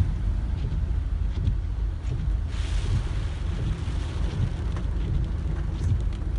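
Inside a car driving through a flooded street in heavy rain: a steady low rumble of the moving car and wind on the microphone, with a louder hiss of water swelling for about a second, around two and a half seconds in.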